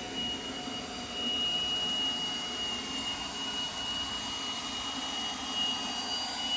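Power drill motor running steadily with a constant high whine, having spun up just before.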